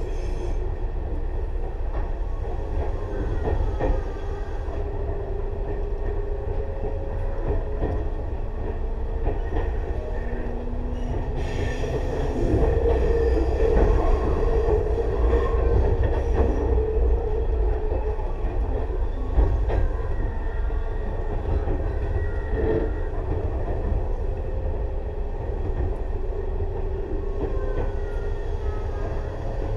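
Tobu 6050 series resistor-controlled electric train with TM-63 traction motors running along the line: a steady rumble of wheels and running gear with a motor hum, occasional clacks over rail joints and faint wheel squeal at times. It grows louder from about twelve seconds in.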